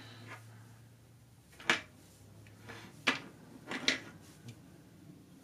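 Hard plastic toy figures handled and set down on a surface: a few sharp clicks, one about a second and a half in, another about three seconds in, then two close together near four seconds.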